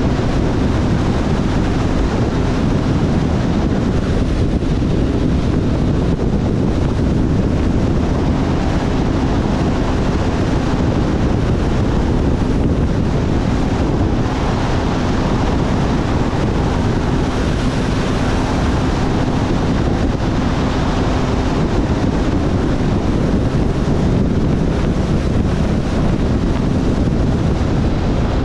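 Wind rushing over a GoPro microphone on a moving Kawasaki ZRX1100 motorcycle. Under the wind, the bike's inline-four engine keeps a steady, faint hum.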